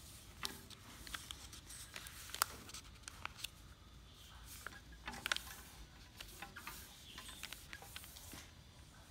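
A sheet of paper being folded and creased by hand into a paper airplane: scattered crinkles and rustles, with sharper crackles about two and a half seconds in and again just past five seconds.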